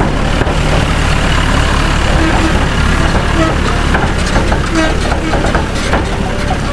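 A large vehicle engine running steadily with a deep rumble, with voices over it.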